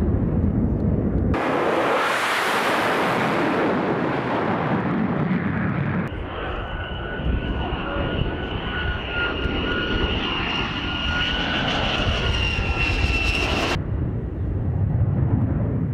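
Lockheed Martin F-35 fighter jet's F135 turbofan passing close overhead: a loud broad jet rush, then a steady high-pitched engine whine that cuts off suddenly near the end, leaving a low rumble.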